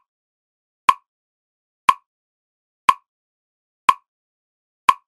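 A single sharp tick once every second, five in a row with silence between, a clock-like pacing tick to breathe and focus by.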